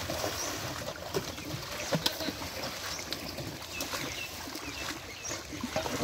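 Water splashing and sloshing as netted carp thrash at the surface beside a wooden fishing boat, with a few sharp knocks about one and two seconds in.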